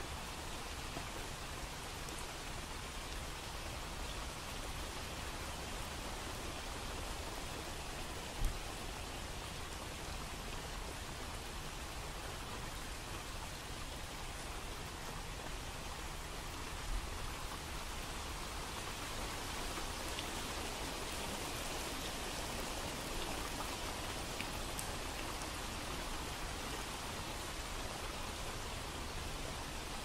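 Steady rain falling, an even hiss without rises and falls. Two brief low thumps stand out, at about 8 seconds and again at about 17 seconds.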